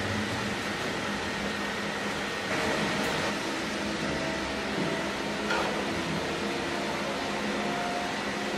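Steady machine hum and rush of an aluminium melting furnace and its blowers, with a slight swell about two and a half seconds in and faint knocks as the dross rakes work at the furnace door.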